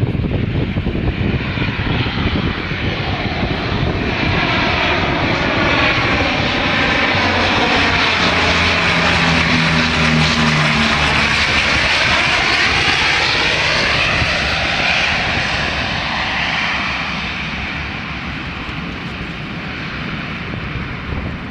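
Twin-engine amphibious water bomber flying low overhead. The engine drone grows louder as it approaches, is loudest about halfway through as it passes overhead, then fades steadily as it flies off.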